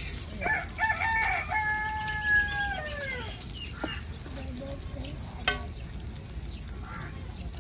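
A rooster crowing once, a call of about three seconds that holds its pitch, then falls away at the end. A short sharp knock follows about five seconds in.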